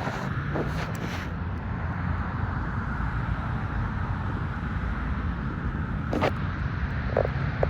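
Steady low rumble of outdoor background noise, with a few brief clicks, the sharpest about six seconds in.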